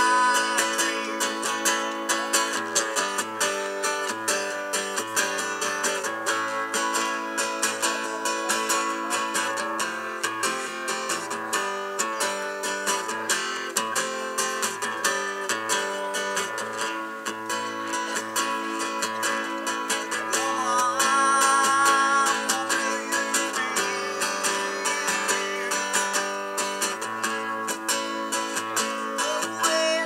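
Acoustic guitar strummed steadily in a live solo performance, an instrumental stretch between sung lines.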